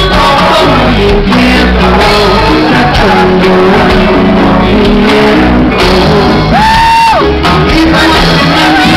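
Reggae band playing live: electric bass, drums and voices, loud and dense. A high note is held for about a second, starting about six and a half seconds in.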